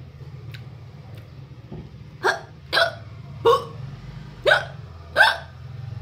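A woman hiccupping five times in quick succession, starting about two seconds in, one every half second to a second, over a low steady hum.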